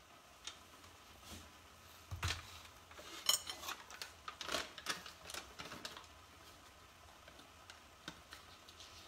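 Kitchen clatter as dishes and utensils are handled: a dull thump about two seconds in, then a quick run of clicks and knocks with one sharp ringing clink, dying down after about six seconds to a few light taps.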